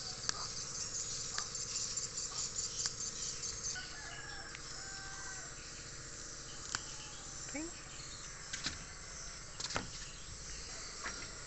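Steady high insect chirring, strongest in the first few seconds, with scattered clicks and rustles as basil plants are pulled up by the roots. A few short faint calls come through in the middle.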